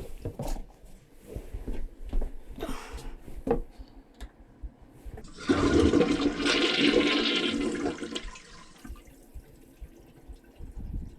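Toilet flushed: a few light knocks and clicks, then about five seconds in a rush of water for about three seconds that dies away.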